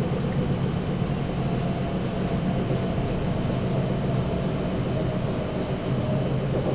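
Passenger train running, heard from inside the carriage: a steady rolling noise with a low hum.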